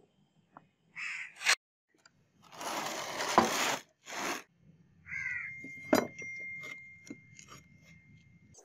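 Handling noises on a concrete floor as a wooden mould frame and a cleaver are set down: a noisy scraping rush lasting about a second, then a sharp knock a few seconds later. A couple of short bird-like calls sound in the background.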